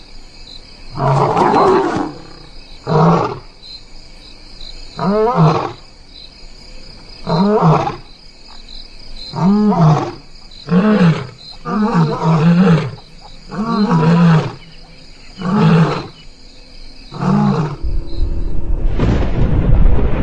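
Male lion roaring: a bout of about ten deep, moaning calls, each rising and falling in pitch and lasting about a second, one every second or two. A steady low rumble comes in near the end.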